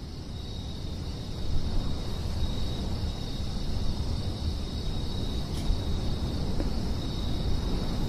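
Night ambience: a steady, high-pitched chirring of crickets over a low rumble, slowly growing louder.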